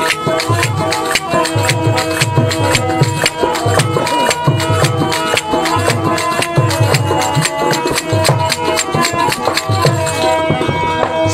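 Instrumental break in Sindhi Sufi devotional folk music: rapid clacking of hand-held percussion over a steady low drum beat and sustained melody tones, with no singing.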